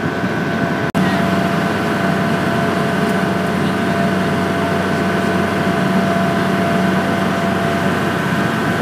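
A ferry boat's engine running with a steady drone, heard from on board over a constant rush of water and air. The sound drops out for an instant about a second in, then the same drone carries on.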